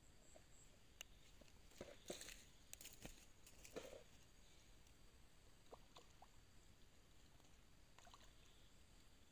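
Near silence: faint outdoor ambience, with a few soft clicks and rustles between about one and four seconds in.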